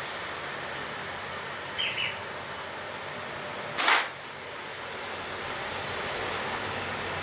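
A rubber-band gun slingshot firing once about four seconds in: a single sharp snap, the loudest sound, over a steady background hiss.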